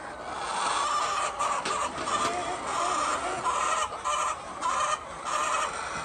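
A flock of laying hens clucking, calls following one after another with short pauses.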